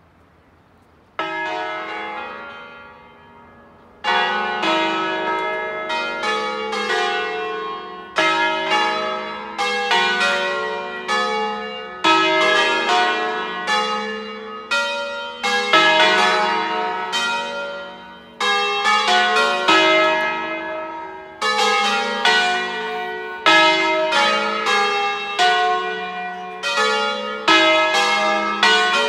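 Five-bell ring in E (slightly flat), cast by Felice Bizzozero in 1818, swung in a full peal (distesa) as the call to Mass. A single bell strikes about a second in and rings alone while it dies away. From about four seconds in the other bells join, and their strokes overlap in a continuous peal.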